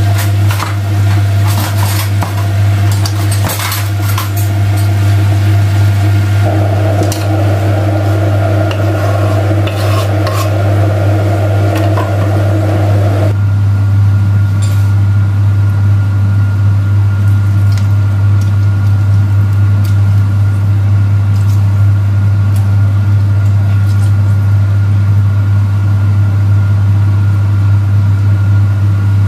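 Pots, pans and cutlery clinking and clattering during cooking, with the clinks in the first half, over a loud, steady low hum.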